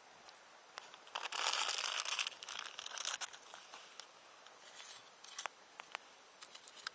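Crinkling and rustling for about two seconds, beginning a little after the start, amid scattered sharp crackles and pops from a campfire.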